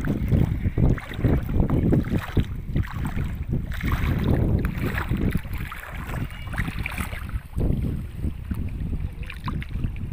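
Wind buffeting the microphone in uneven gusts over the wash of sea water at the shore.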